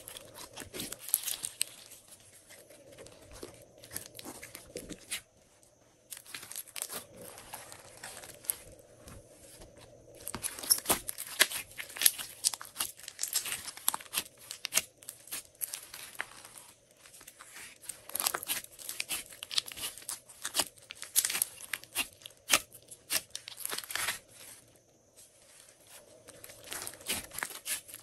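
Hands squeezing and kneading a large mass of glossy slime: a dense crackle of sticky clicks and small pops, coming in bursts with short pauses between.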